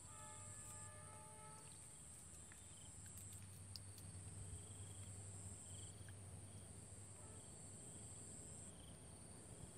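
Faint steady high-pitched chirring of insects, crickets, with a few faint short calls over it.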